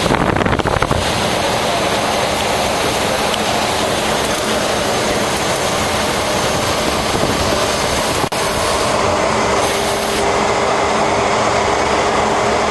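Loud, steady cabin noise of a Cessna 208B Grand Caravan's single turboprop engine and propeller, mixed with a rumble that fits the wheels on the runway during the landing roll. A steady hum joins in about two-thirds of the way through.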